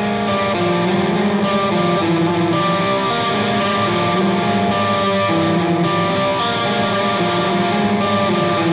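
Live rock music led by a Les Paul-style electric guitar playing a repeating, distorted riff, coming in loud right at the start.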